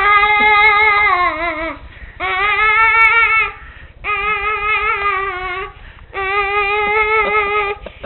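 A young child's voice making four long, held, wavering "oooo" tones with short breaks between, sounding like a spooky Halloween ghost voice.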